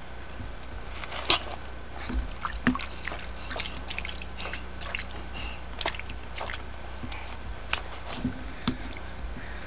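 Irregular wet squishes, clicks and scrapes of a toddler's hands digging in soft mud and dirt.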